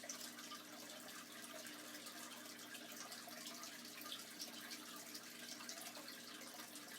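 Faint steady background hum with a light hiss: room tone.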